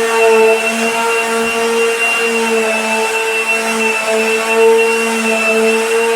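Electric power sander running continuously on a floor, a steady motor whine that wavers slightly in pitch and level as it works the surface.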